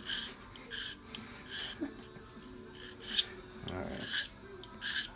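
Fine file drawn in one direction across the edge of a key blank: short rasping strokes about once a second, thinning the blank into a sharp, even blade for impressioning a cam lock.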